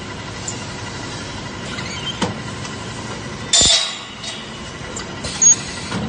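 Factory machine-shop noise: a steady machinery hum with scattered metal clinks, a short loud hiss about three and a half seconds in, and a sharp metallic clank near the end.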